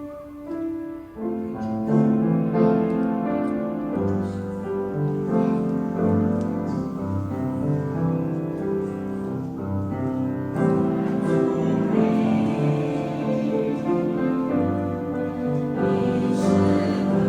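Hymn sung by a church choir with piano accompaniment, starting softly and filling out about a second in.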